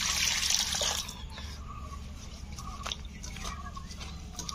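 Water splashing as amrul leaves and chillies are washed, stopping about a second in; then scattered drips and small clicks.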